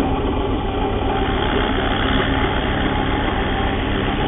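Bench drill press motor running steadily at a fairly quick speed while the bit is fed down into the timber to drill the middle hole of a mortise. About a second in, a brighter hiss joins the motor hum as the bit cuts into the wood.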